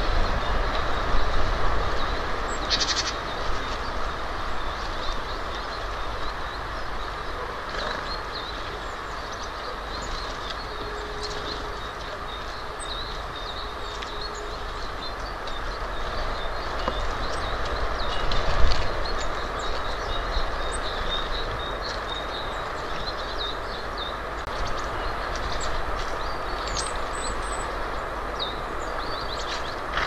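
Steady outdoor rumble and hiss, with faint, short, high bird chirps scattered through it.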